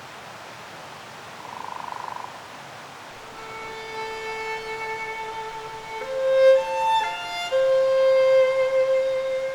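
A violin plays slow, held notes. It comes in about three seconds in over a steady hiss and grows louder. Before it, a brief rapid trill sounds for under a second.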